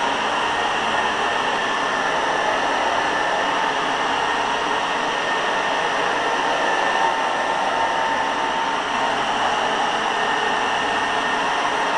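Old Hoover carpet cleaner running, its motor giving a steady whine over a rushing noise.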